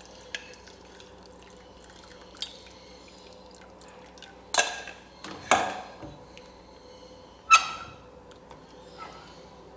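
Milk pouring from a steel saucepan into a steel pan of roasted vermicelli for kheer, with several sharp clanks of the steel cookware; the loudest come around the middle, and one near the end rings briefly.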